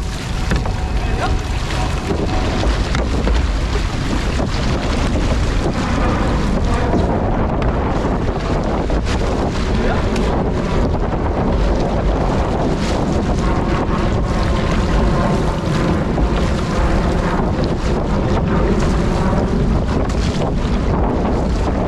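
Wind buffeting the microphone, with a steady low rumble over water rushing past a six-man outrigger canoe's hull and the irregular splashes of paddle strokes.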